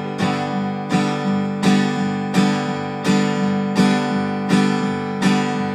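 Acoustic guitar strummed in a steady rhythm, one chord stroke roughly every three-quarters of a second, between sung verses.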